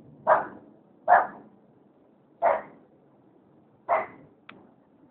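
A neighbour's dog barking four times at uneven gaps of one to one and a half seconds, with a short click near the end.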